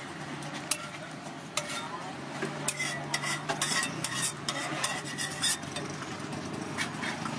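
Metal spatula scraping and clacking on a hot griddle while egg fries, with quick strikes bunched together in the middle.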